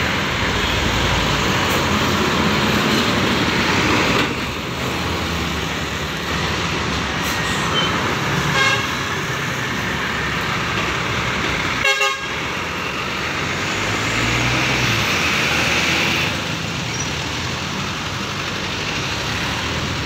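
Tour coach moving slowly past close by, its diesel engine running, with horn toots sounding over it.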